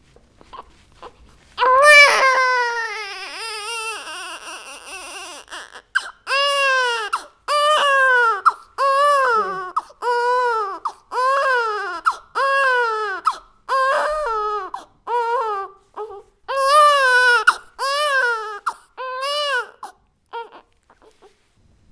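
Baby crying: after a short pause, one long wail that slowly fades, then a steady run of about fourteen short cries, roughly one a second, each rising and falling in pitch. The crying stops shortly before the end.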